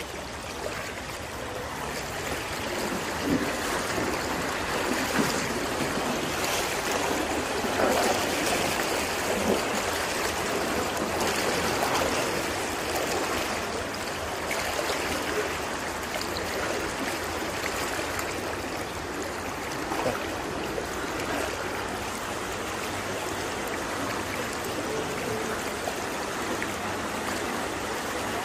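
Knee-deep floodwater rushing along a street, a steady running-water noise with a few brief louder peaks.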